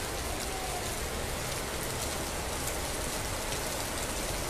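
Heavy monsoon rain pouring steadily onto a paved street and forecourt, an even hiss of big drops splashing on wet concrete and asphalt.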